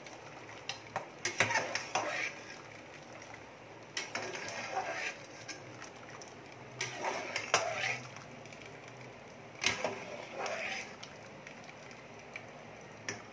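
Steel ladle clinking and scraping against a steel strainer as cooked rice is scooped out and dropped into the biryani pot, in about four bursts a couple of seconds apart, each starting with a sharp clink.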